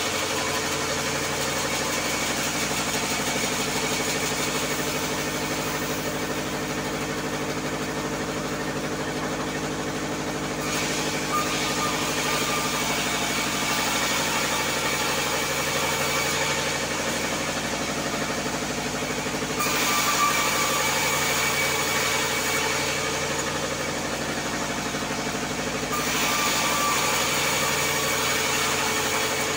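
Band sawmill running steadily while timber is fed through it: a constant machine drone, with the louder hiss of the blade cutting wood coming and going in several passes, strongest about ten, twenty and twenty-six seconds in.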